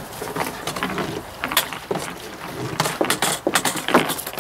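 Irregular clicks, knocks and light clatter of parts being handled and worked on by hand, a few sharper knocks about a second and a half in, around three seconds and near the end.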